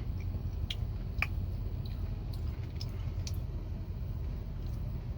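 A person eating a Blizzard ice cream, with soft chewing and a few small faint clicks, over a steady low rumble.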